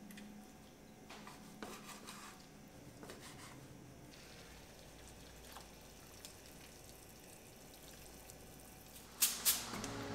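Faint water running at a kitchen sink, with a few light clicks. Near the end come two sharp clacks in quick succession.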